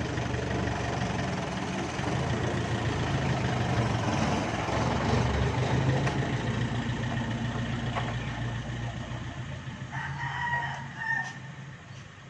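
An engine runs steadily, then fades away about eleven seconds in. A rooster crows once near the end.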